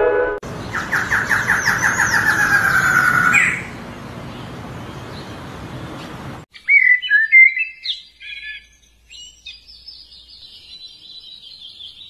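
Birds singing: a rapid run of repeated whistled notes, about five a second, sliding slightly down and ending in an upswept note, with higher chirps above. After a stretch of background hiss, different birds give scattered chirps and a faint high trill.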